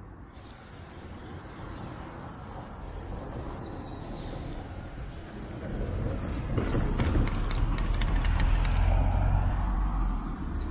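Aerosol spray-paint can hissing as a black outline is sprayed, with a few brief breaks in the spray. From about six seconds in, the low rumble of a passing heavy vehicle rises and becomes the loudest sound.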